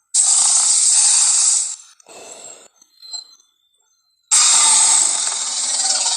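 Film monster sound effects, giant ape or dinosaur: a loud, hissing roar of under two seconds, a shorter, quieter one, then another long roar starting about four seconds in.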